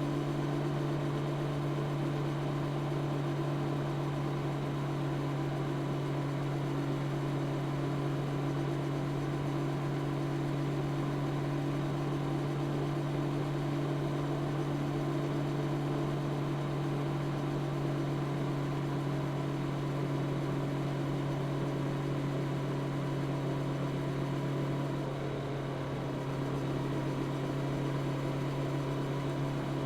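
Honda CB650R's 649 cc inline-four engine through its stock exhaust, running at steady revs while riding. It goes briefly a little quieter about 25 seconds in.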